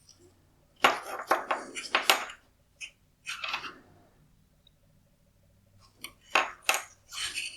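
Hard plastic and metal parts of a disassembled LED headlight clattering and knocking as they are handled and set down on a hard surface, in two clusters of rapid clicks with a short one between.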